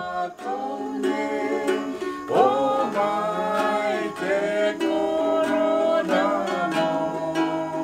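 Ukulele strummed in a steady rhythm while voices sing along, holding long notes.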